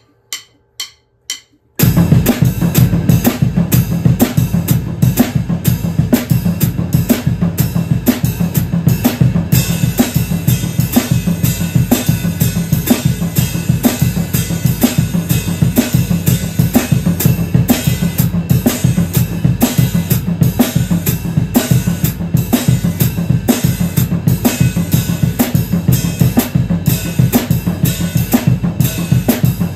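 Drum kit played as a steady 12/8 groove: bass drum, floor tom and snare ostinato under a four-over-three ride cymbal pattern, with the hi-hat foot alternating closed and open strokes. The groove starts about two seconds in, after four soft count-in taps.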